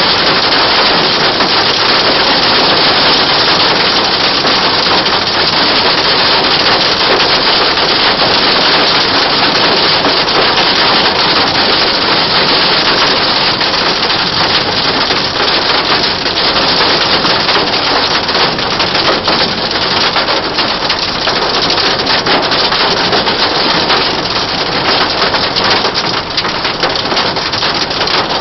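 Hail and heavy rain drumming on a car's roof and windscreen, heard from inside the cabin: a loud, dense clatter of countless hits that thins slightly near the end.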